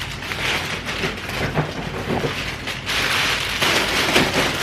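Irregular rustling and crinkling handling noise, growing louder about three seconds in.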